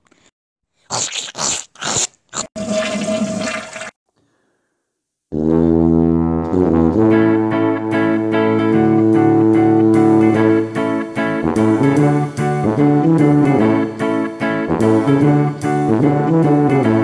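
A few short splashing strokes of a plunger in a toilet and then a toilet flush, followed by a short pause. Background music with sustained chords starts about five seconds in and continues.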